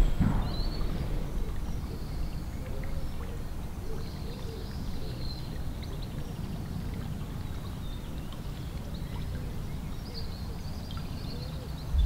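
Outdoor wind rumbling steadily on the microphone, with faint bird chirps above it and a bump right at the start.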